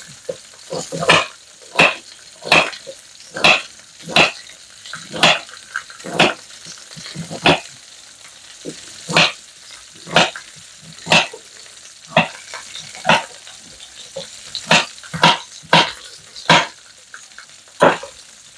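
Kitchen knife slicing carrots into rounds, the blade knocking down on a wooden chopping board about once a second, with a short pause near the middle.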